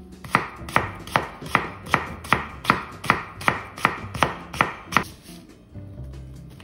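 Chef's knife julienning carrot on a bamboo cutting board: even chopping strokes, about two and a half a second, each blade tapping the board, stopping about five seconds in. Faint background music is left after.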